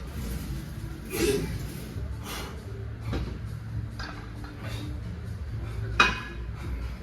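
Metal gym equipment clinking and clanking, such as weight plates or a machine's weight stack, in a series of sharp knocks about a second apart, the loudest about six seconds in, over a steady low hum.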